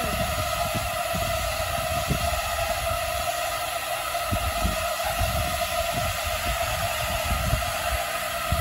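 A swarm of small quadcopter drones hovering together, their propellers making a steady, even hum of several blended pitches, with irregular low rumbling underneath.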